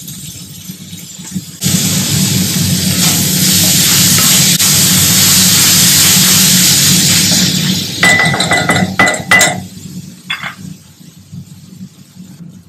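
Spiced potato sandwich filling sizzling in a hot pan, a loud steady hiss for about six seconds. Then a metal spoon clinks and knocks against the pan a few times, one strike briefly ringing.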